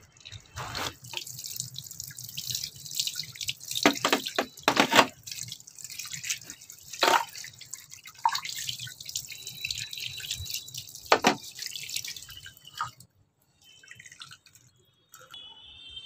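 Running water splashing onto a plastic washing-machine detergent drawer as it is rinsed, with several sharp knocks of the plastic being handled. The water stops about thirteen seconds in.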